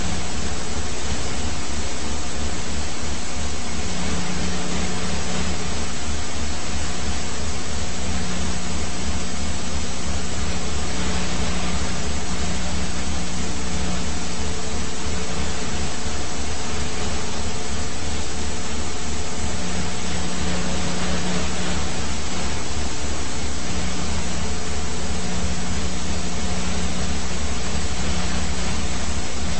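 Police helicopter's turbine and rotor noise: a loud, steady drone with a fast low beat underneath and a hum that fades in and out.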